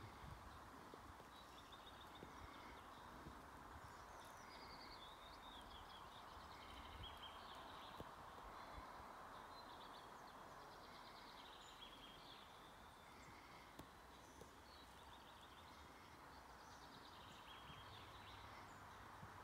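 Faint birdsong: short high chirps and trills repeated throughout, over a quiet outdoor background hiss.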